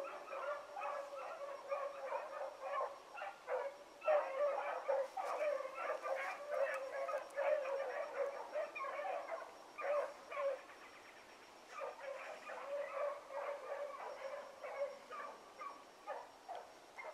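Several rabbit hounds baying together while running a rabbit's scent trail through brush: the chase is on. Their short overlapping calls come thick and fast, easing off briefly about eleven seconds in.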